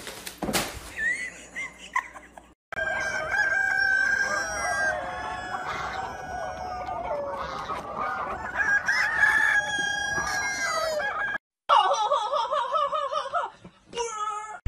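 A flock of chickens clucking, with a rooster crowing. The flock sound stops abruptly about three quarters of the way in.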